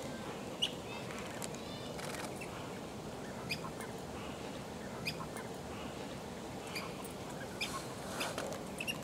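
Waterbirds calling: scattered short, sharp calls and chirps, several every second, over steady low background noise and a faint steady hum.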